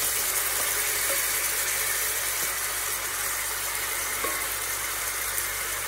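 Steady rushing hiss with a low hum underneath: constant kitchen background noise. A metal ladle taps lightly against the nonstick pot a couple of times as egg gravy is spooned in.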